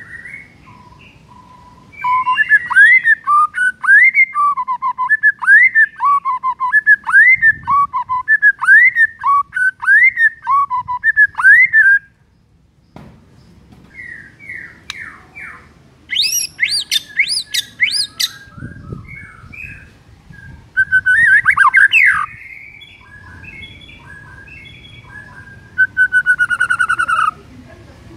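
White-rumped shama singing loudly. After a quiet start, a short whistled phrase is repeated over and over for about ten seconds. After a brief pause comes a varied run of notes, including a burst of very high, rapid notes and more loud phrases with gaps between them.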